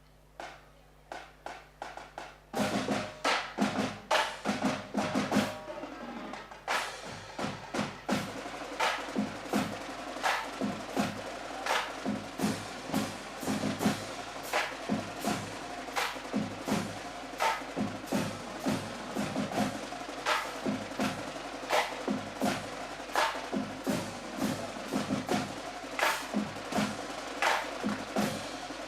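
Drum ensemble playing: a few light taps at first, then about two and a half seconds in the full group of drums comes in loud, beating a fast, steady rhythm with regular heavy accents.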